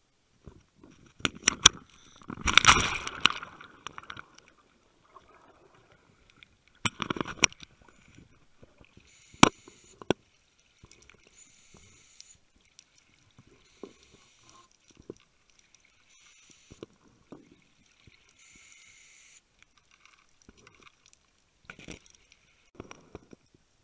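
Underwater sound picked up through a dive camera's housing: scattered knocks and clicks, a louder watery rush about two to three seconds in, then short hissing rushes every second or two.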